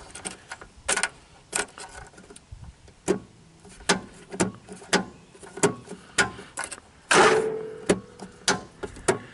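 Repeated sharp clicks of a lawn tractor's red PTO switch knob being pulled and pushed, with the ignition key rattling, and a louder noise lasting under a second about seven seconds in. The electric mower-deck clutch gives no click of its own: the owner suspects a failed electric clutch, unless it needs someone on the seat.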